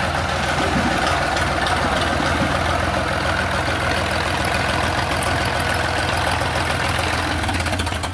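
Inboard engine of a longtail boat, driving its long propeller shaft, running steadily at low revs.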